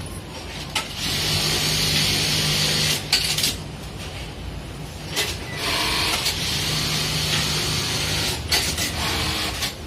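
Electronic button sewing machine of the 1903 type running two stitching cycles of about two to three seconds each: a steady machine hum, with a click as each cycle starts and stops.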